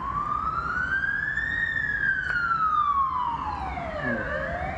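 A siren wailing in slow sweeps. Its pitch rises to a peak about a second and a half in, falls for nearly three seconds to a low point near the end, then starts to rise again.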